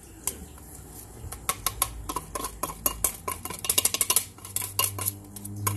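Wire whisk clinking and scraping against a metal mesh sieve while tapioca starch is sifted through it: a rapid, uneven run of light metallic clicks, thickest around the middle.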